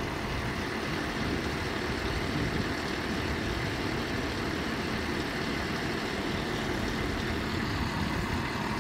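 Steady low rumble of city traffic.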